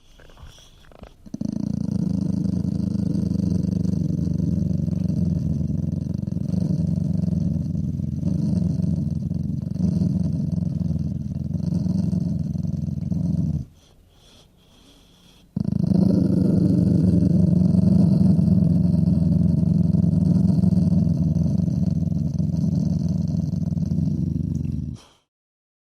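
Dog growling low and continuously in two long stretches, the first about twelve seconds and the second about nine, with a short pause between them.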